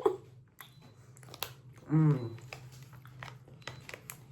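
A person chewing a mouthful of peanut butter chocolate close to the microphone, with small wet mouth clicks throughout. About two seconds in comes a brief hummed "mm" of the voice.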